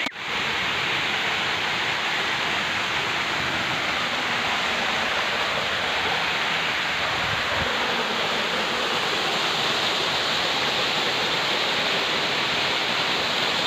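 Steady rush of a small waterfall, with water pouring and splashing over rocks close by.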